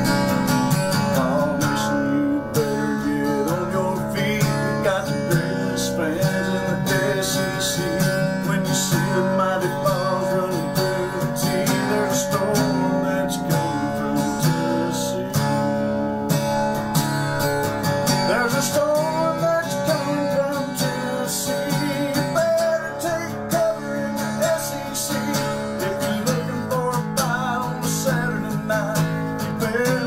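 Acoustic-electric guitar strummed in steady chords, playing a song.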